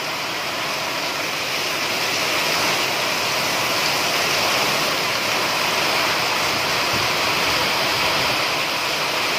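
Torrential monsoon rain pouring down, with runoff sheeting off the roof edge onto a concrete courtyard: a steady, dense rushing hiss that grows a little louder over the first few seconds.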